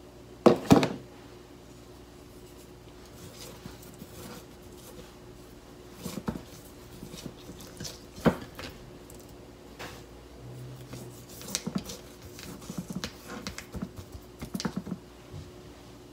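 Quiet kitchen handling while salting a whole sea bream: a metal spoon clicks sharply against a plastic salt tub about half a second in, then light scattered ticks and taps as the salt is sprinkled and the fish is turned on a ceramic plate. A faint steady hum runs underneath.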